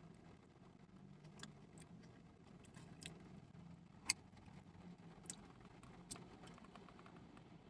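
Faint eating sounds: a few scattered soft clicks and smacks from chewing and utensils on a takeout container, the sharpest about four seconds in, over a low steady hum inside a parked car.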